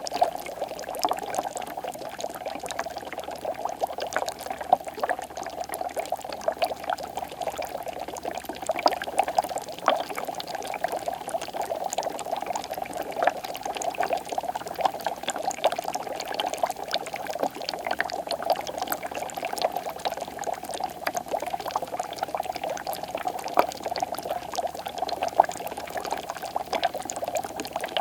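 Water bubbling steadily: a dense, unbroken run of small pops and gurgles with no pauses.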